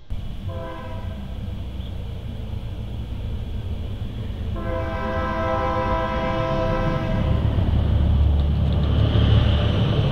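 Locomotive air horn sounding a short blast and then a long blast, each a chord of several tones, over a low rumble that grows louder as a train approaches.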